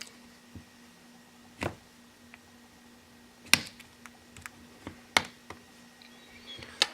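Plastic clips of a ZTE Compel phone's housing snapping loose one after another as a plastic pry tool is worked around the seam: a string of irregular sharp clicks, the loudest about halfway through.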